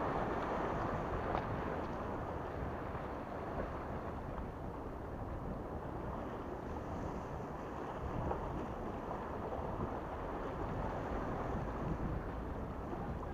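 Small waves washing and splashing against the rocks of a breakwater, a steady rushing wash that swells and eases, with some wind rumbling on the microphone.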